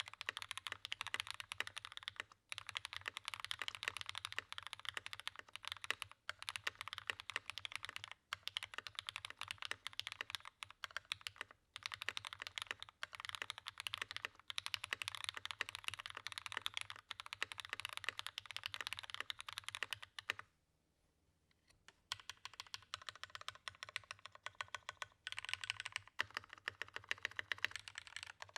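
Fast typing on a Matrix Project F mechanical keyboard fitted with lubed Cherry MX Hyperglide Black linear switches, an aluminium plate and GMK keycaps: a dense run of rapid keystrokes. A few brief pauses break it, and one break of about a second and a half comes around two-thirds of the way through.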